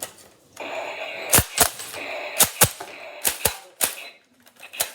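Mossberg 500 pump-action shotgun being handled and worked by hand: sharp metallic clicks, mostly in pairs, about once a second, over the rustle of handling.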